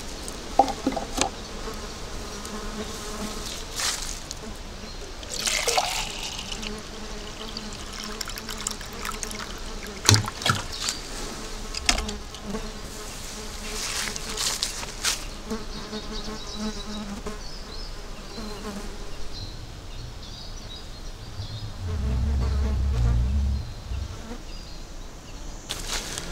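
Flies buzzing close by, coming and going, with a few scattered short knocks and a low rumble lasting about two seconds near the end.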